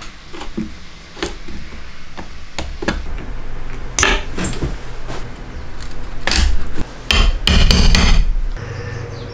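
Hand woodworking tools knocking and tapping on wood: scattered single knocks, then a loud run of sharp strikes near the end as a chisel is worked into a pine board.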